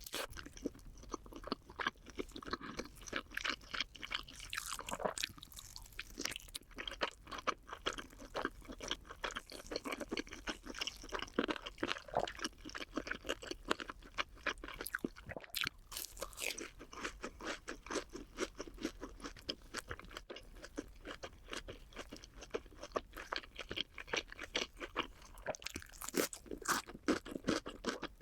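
Close-up chewing of crunchy food, chicken and cheese balls, as a dense run of quick crunches that goes on without a break.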